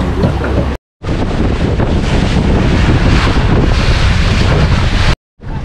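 Wind buffeting the microphone over a tour boat's motor running and choppy lake water rushing and splashing along the hull. The sound drops out to silence twice, briefly: about a second in and near the end.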